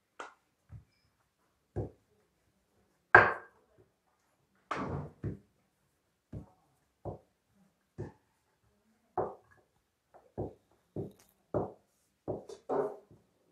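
Wooden rolling pin and stiff dough knocking on a granite countertop as samosa dough is rolled out and turned: a string of short, irregular knocks, the loudest about three seconds in.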